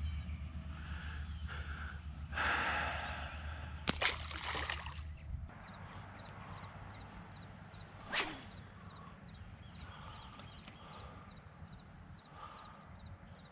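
Outdoor ambience with handling noises: a low rumble that stops about five seconds in, a brief rush of noise, a sharp click followed by a second of rustling, and a quick falling swish about eight seconds in, with faint high chirps in the background.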